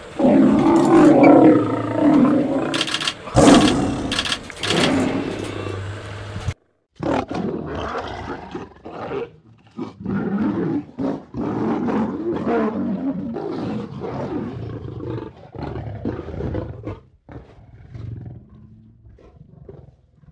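Lions roaring: long, deep calls that break off abruptly about six and a half seconds in, then a run of shorter roars, one after another, that tail off near the end.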